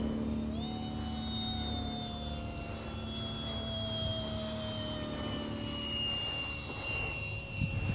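Phase 3 F-16 radio-controlled model jet flying low past, its motor whine jumping up in pitch about half a second in, then slowly falling.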